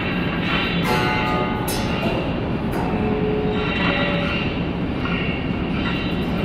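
Experimental noise music: a dense, steady wash of rumbling, grinding noise with short held tones coming and going at several pitches.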